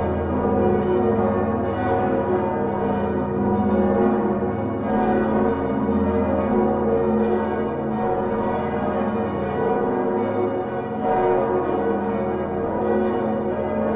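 Large swinging church bells of Utrecht's Dom tower ringing together in a full peal, with the great 1505 Van Wou bells sounding among them. The bells are hung on straight headstocks with flying clappers. Strikes overlap densely and continuously, with no pauses.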